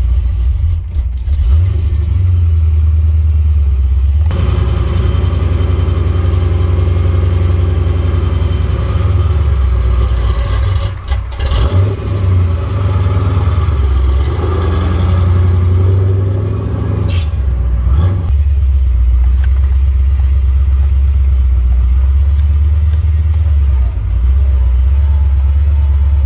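Chevrolet 468 big-block V8 (a 454 bored .060 over) on a 750 Holley four-barrel with no choke, running just after a cold start and warming up, with a steady, loud, low exhaust rumble. The sound's character shifts abruptly twice, about 4 and 18 seconds in.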